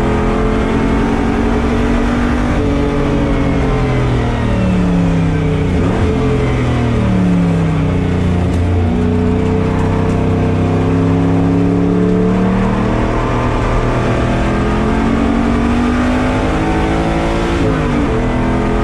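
LS V8 race engine in a 1983 Toyota Celica, heard from inside the car, running hard on track. Its note drops a few seconds in and again around the middle as the car slows for corners, climbs back under acceleration, holds high, then cuts off abruptly at the end.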